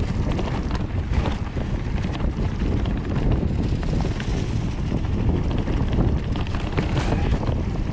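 Wind rushing over the microphone of a Cube Stereo 150 mountain bike riding fast down a dirt singletrail, with tyres rolling over the ground and short clicks and rattles from the bike over bumps.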